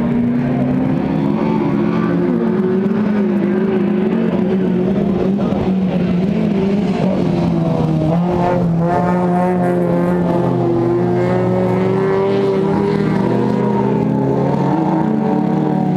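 Folkrace cars' engines running hard at high revs as they race round the track. The pitch holds fairly steady, wavering and stepping a little as the drivers change gear and lift off.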